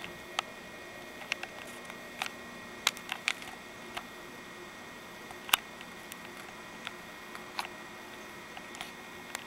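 Steady electrical hum and faint whine of a computer, with irregular sharp clicks scattered over it, the loudest about five and a half seconds in.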